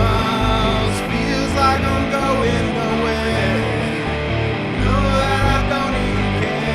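A rock song's instrumental passage with no vocals, led by guitar over a steady bass line.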